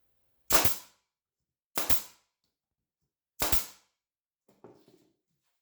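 Performax 16-gauge pneumatic finish nailer firing three times, about a second and a half apart, driving finish nails into scrap wood with its depth adjustment turned all the way down.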